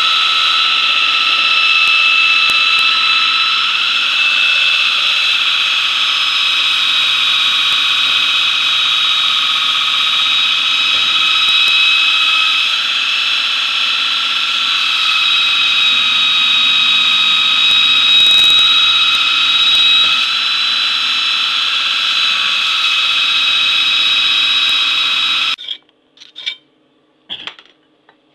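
Belt grinder running with a knife blade ground against the abrasive belt: a steady high whine with a grinding hiss. It cuts off suddenly about 25 seconds in, followed by a few short knocks.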